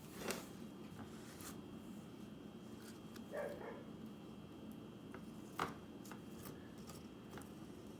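Light clicks and scrapes of a knife spreading peanut butter around a cardboard toilet-paper roll: a few separate sharp clicks, the loudest a little past halfway.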